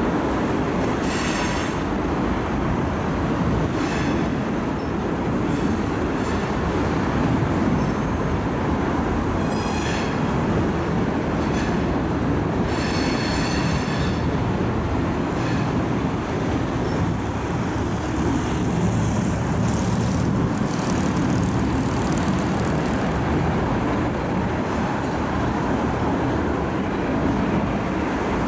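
Loaded coal unit train's hopper cars rolling steadily past on the rails, with several brief high-pitched wheel squeals.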